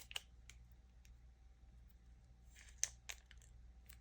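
Faint handling of Pokémon trading cards: a few sharp, light clicks as the cards are slid and flicked, with a short soft rustle about two and a half seconds in.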